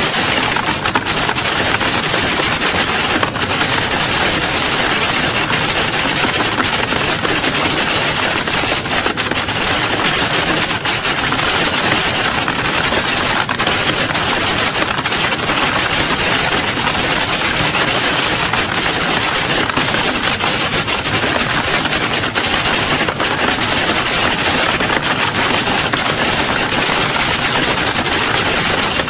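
Many computer keyboards typing at once, a dense, continuous clatter of keystrokes.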